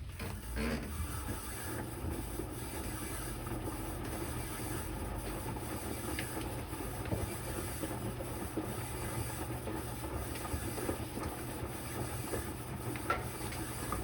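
Electrolux Quickwash commercial washing machine running a rinse. A steady rush of water mixes with low drum and motor noise; it starts suddenly and drops away right at the end.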